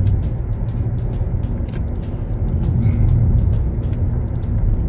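Toyota Corolla driving at highway speed, heard from inside the cabin: a steady low rumble of engine and tyre noise.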